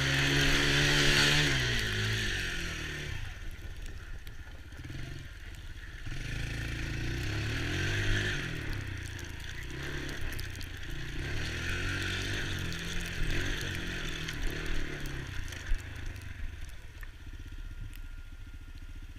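Small youth ATV engine riding, loudest at first, its pitch dropping about two seconds in as it slows, then rising and falling again several times as the throttle is worked.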